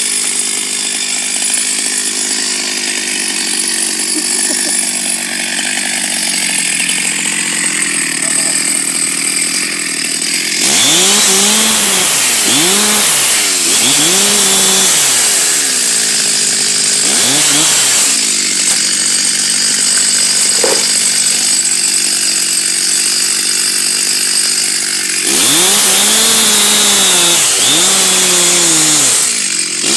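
Stihl MS 361 two-stroke chainsaw running at full throttle, cutting through a tree trunk. It is steady for the first ten seconds or so, then its pitch repeatedly sags and rises as the chain bites into the wood. It steadies again for a few seconds before the wavering returns near the end.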